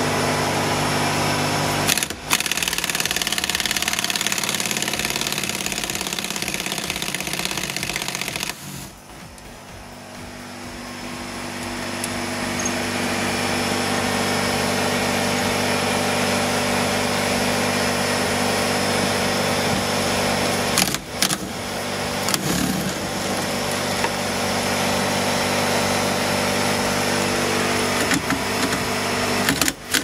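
Pneumatic air tools, a hose-fed air ratchet and an air impact wrench, running in long steady stretches as the seat belt anchor bolts are spun out. The running breaks off briefly about 2, 9 and 21 seconds in.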